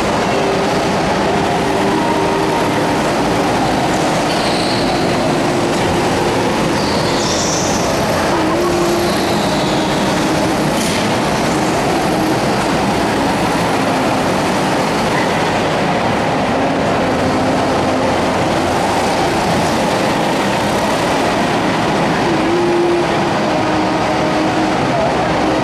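Several go-karts running laps of an indoor track, their engines a steady loud drone in a large hall, with wavering engine notes as they accelerate and brake. There are a few short high squeals in the first half from tyres on the smooth floor.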